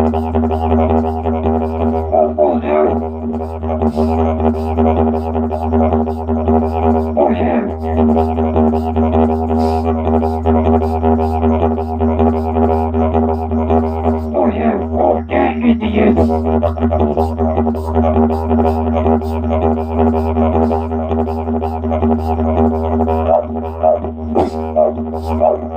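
Didgeridoo drone played without a break, with steady overtones and quick rhythmic accents. A few times it is overlaid with rising-and-falling voice sounds made through the instrument.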